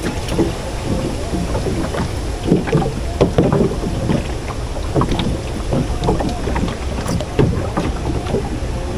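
Steady rush of wind and river water around a small wooden boat, with scattered light knocks and clicks.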